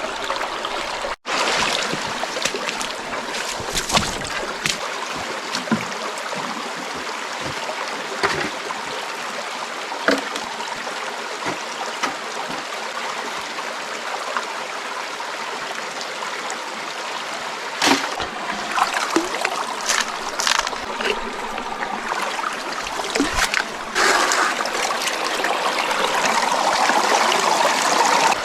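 Mountain brook water running steadily over rocks, with scattered knocks and clicks over it. The sound drops out for an instant about a second in and grows louder a few seconds before the end.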